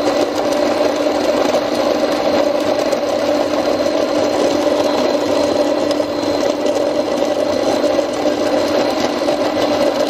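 Beguko electric conical burr coffee grinder running, grinding a hopper of whole coffee beans: a steady motor drone at a constant pitch.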